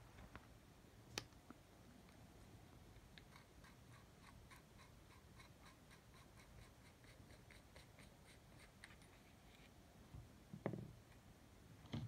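Near silence with faint handling sounds as a soldering iron is taken apart by hand: a few light clicks, a run of faint, even ticks at about three a second through the middle, and a louder short knock near the end.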